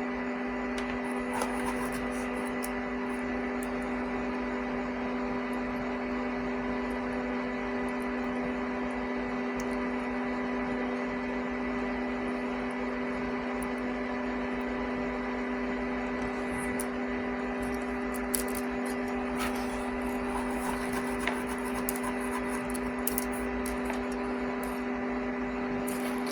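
Steady electrical hum made of several fixed tones, with faint scattered light clicks and scrapes over it.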